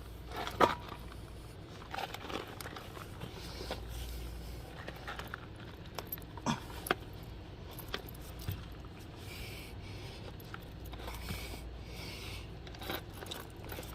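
Tire plug insertion tool being forced into a tire puncture: scattered sharp metal clicks and scrapes, with a few soft hisses later on.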